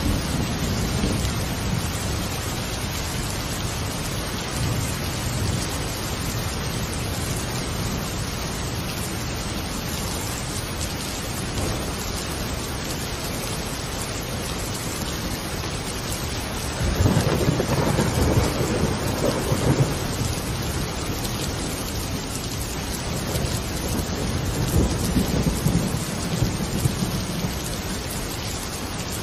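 Steady rain with rolling thunder, a louder rumble swelling about seventeen seconds in and lasting a few seconds, and a weaker one later.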